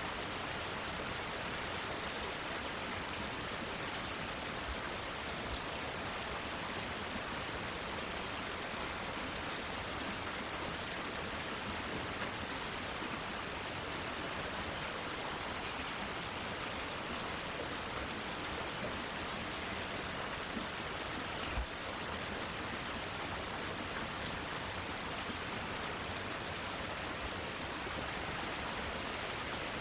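Steady rain falling on garden plants and foliage, an even hiss of many drops. About two-thirds of the way through, one louder single tap stands out.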